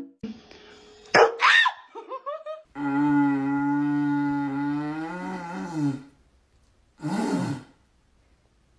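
A man's voice sounding a long, low, howl-like drone through a long cardboard tube, held steady for about three seconds and then falling away. Shorter gliding calls come before it, and one rough, falling call follows near the end.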